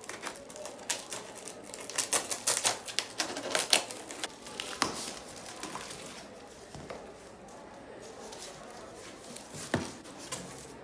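A rapid flurry of clicks and knocks from hard objects being handled, densest from about two to four seconds in, then thinning out to a few scattered knocks.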